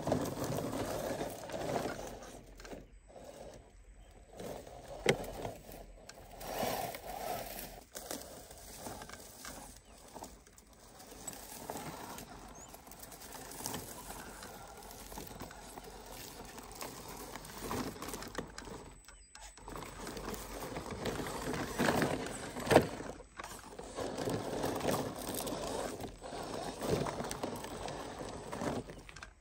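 Small electric RC crawler truck driving over loose rock and gravel: the motor and gearbox whir in uneven surges as the tyres grind and crunch over stones. A few sharp knocks come from the truck bumping over rocks, the loudest about five seconds in and again near the end.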